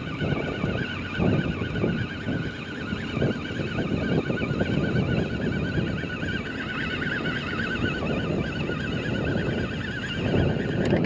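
Fishing reel being wound in, a wavering whine that stops about ten and a half seconds in, with wind and water noise underneath.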